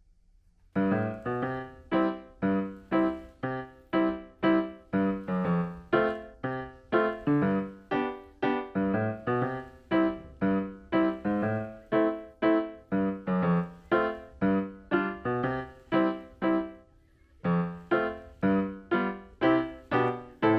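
Background piano music: notes struck at an even pace, about two a second, each ringing and dying away, with a brief pause about three quarters of the way through.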